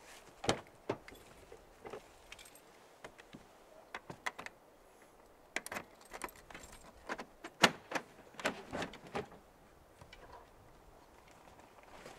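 Small metal objects clinking and clattering in short irregular bursts of sharp clicks, the loudest about halfway through.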